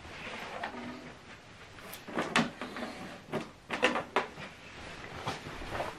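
Power cables and plugs being handled on a tabletop: a run of light knocks and clicks, with several close together about two to four seconds in.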